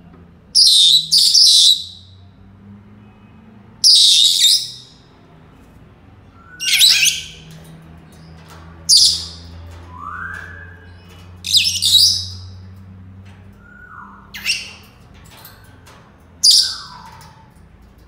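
Senegal parrots calling: about nine loud, shrill shrieks a second or more apart, with a few softer gliding whistles in between.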